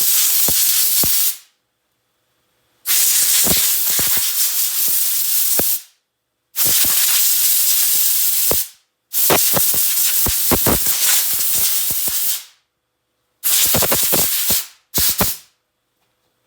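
Compressed-air blow gun blasting in a series of loud hissing bursts with short gaps, blowing metal filings and grinding dust off a welding magnet. Most bursts last two to three seconds, and the last two near the end are short puffs.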